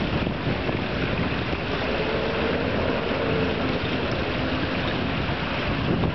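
Wind buffeting the microphone in a steady low rumble, over a faint wash of wind-rippled water.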